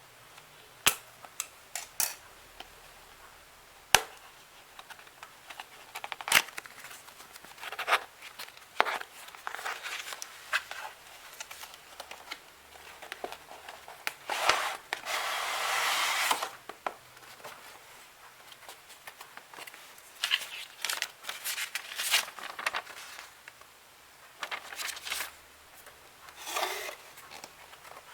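Graphics card packaging being handled and opened: scattered sharp clicks and taps with bits of crinkling, and one longer rustle of about two seconds around the middle.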